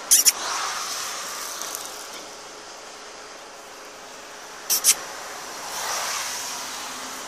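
Cars passing on a road close by, tyre and engine noise swelling twice, once near the start and again about six seconds in. Short sharp clicks, at the start and just before five seconds, sit on top.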